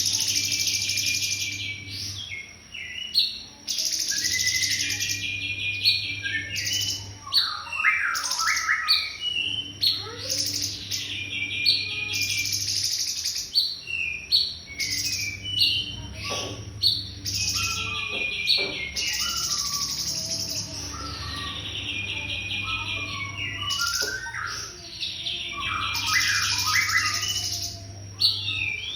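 Cungkok bird singing: loud, rapid trilled phrases about two seconds long, repeated every several seconds, with shorter chirps and whistled notes between them.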